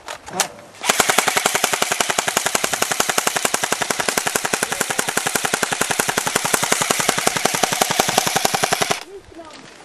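Airsoft M4-style rifle firing one long full-auto burst of about eight seconds: a fast, even rattle of shots that starts about a second in and stops suddenly near the end.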